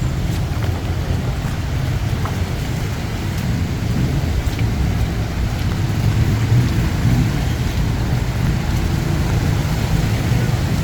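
Heavy monsoon rain pouring steadily, over a constant low rumble.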